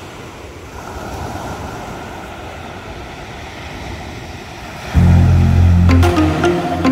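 Steady wash of small waves breaking on a shingle beach. About five seconds in, background music with a deep bass comes in much louder.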